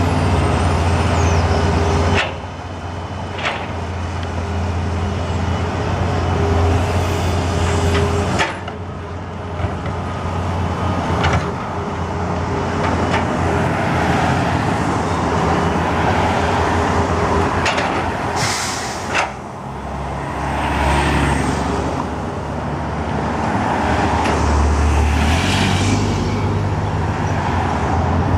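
Caterpillar 320L excavator's diesel engine running under load while it digs and dumps earth, its note rising and falling as the boom and bucket move. Several sharp knocks stand out over the engine.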